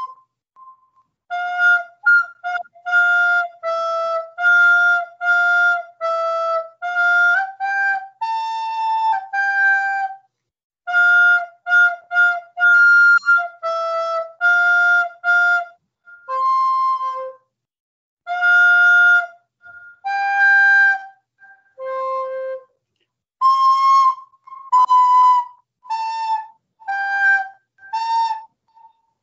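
A recorder playing a simple melody one tongued note at a time, in short phrases with brief pauses between them.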